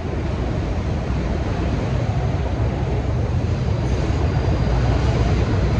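New York City subway train at an elevated platform: a loud, steady rumble with no let-up.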